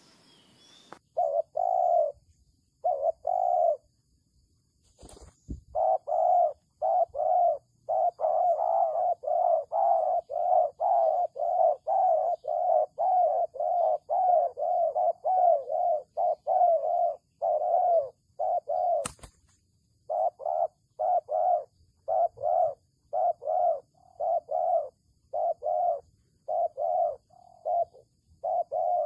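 Spotted doves cooing: short coos repeated about two to three a second, a fast unbroken run through the middle that turns more spaced out near the end. A sharp click comes about two-thirds of the way through.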